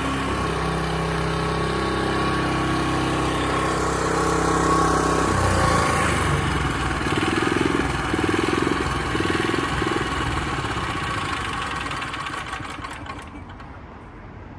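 The small engine of a Canycom BFP307 crawler carrier runs with a steady note and a thin whine over it. About five seconds in, the steady note breaks off into an uneven, slowly pulsing running sound, which fades away near the end.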